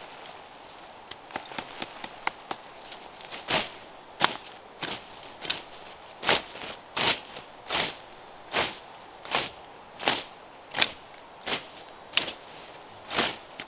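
A hand tool slashing through weeds and dry stalks in a steady rhythm: a sharp swish about every three-quarters of a second from a few seconds in. It follows lighter rustling and snapping of vegetation.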